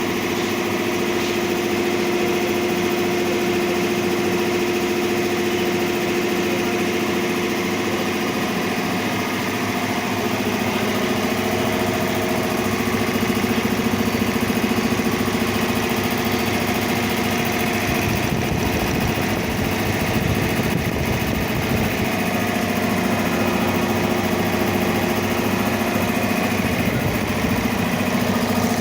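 Heavy-duty high-pressure compressor running steadily with a constant mechanical drone and a few steady tones. It turns deeper and rougher for a few seconds about two-thirds of the way through, then settles again.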